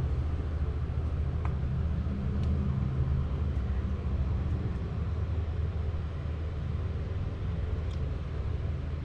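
Steady low background rumble with a light hiss over it and a few faint clicks.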